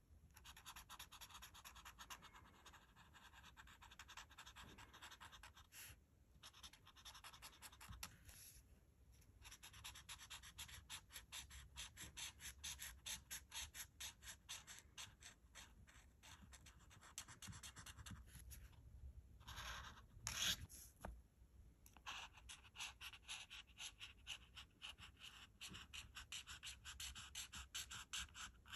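Art marker nib scratching across paper in quick back-and-forth colouring strokes, several a second, with a few short pauses. It is faint.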